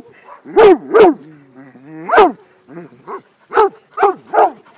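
A dog barking repeatedly: about six loud, sharp barks in an uneven string, with a couple of softer barks in the middle.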